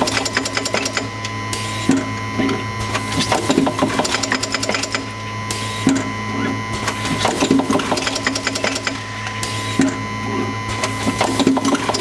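Automatic tube plugging machine running: a vibratory bowl feeder buzzing with a steady hum and a dense rattle of parts. Three short hisses come about four seconds apart, in time with the machine's pneumatic cylinders cycling.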